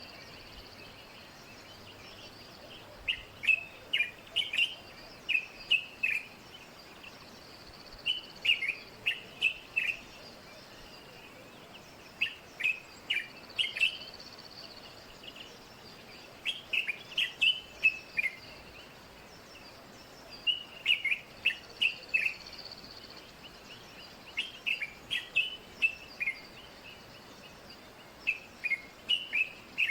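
A songbird singing a short phrase of several quick, sharp down-slurred notes, repeated about every four seconds, over a faint steady hiss.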